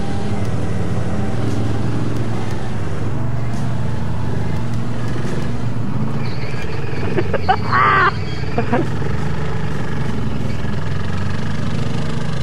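ATV engine running steadily while a machine works through a muddy trail hole. A short pitched cry, like a shout, comes about eight seconds in.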